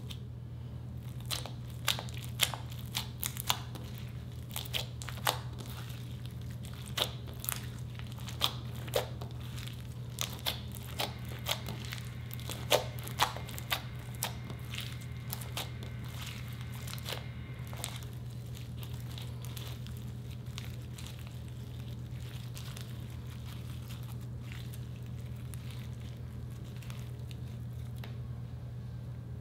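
Hands squeezing and kneading clear slime full of crushed Orbeez water beads, giving a quick run of sharp crackling pops and squelches that thin out and die away a little past halfway. A steady low hum runs underneath.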